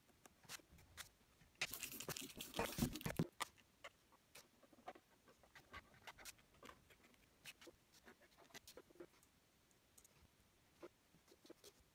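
Pen scratching and tapping on paper in short irregular strokes, with a louder scraping rustle of hand and paper lasting about a second and a half, about two seconds in.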